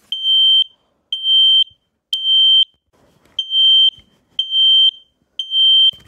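Kidde KN-COSM-BA smoke alarm sounding its shrill, high-pitched fire alarm: two groups of three half-second beeps, with a short pause between the groups. This temporal-three pattern is the standard signal that smoke has been detected.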